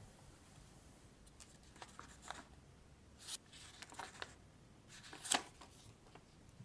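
Pencil sketching on a small notebook's paper: quiet, short scratchy strokes a few at a time, the loudest about five seconds in.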